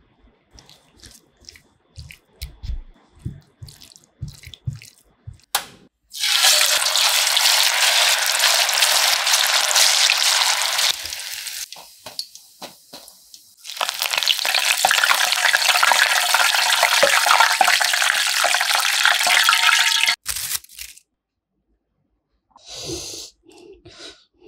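Marinated chicken pieces deep-frying in hot oil in a wok: a loud, steady sizzle that runs for about five seconds, drops back briefly, then sizzles again for about six seconds before stopping abruptly. Before it come light clicks and taps of the marinade being handled in a bowl.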